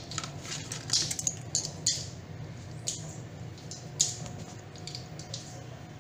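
Small cardboard toy box being opened and handled: scattered crinkles, scrapes and light taps, sharpest about 1, 2, 3 and 4 seconds in, over a faint steady low hum.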